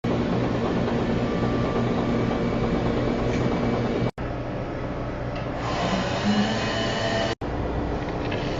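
Steady machine hum and noise, cut off abruptly twice, about four seconds in and again seven and a half seconds in.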